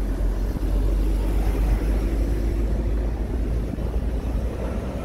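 Jet airliner taking off at a distance: a steady low rumble of its engines at takeoff thrust as it climbs away.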